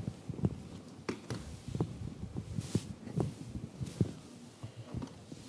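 Footsteps on a stage floor: irregular soft, low thumps about every half second.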